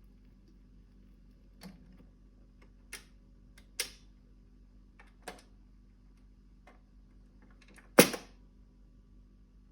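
A handful of sharp clicks and knocks at uneven spacing over a low steady hum, the loudest a hard knock about eight seconds in.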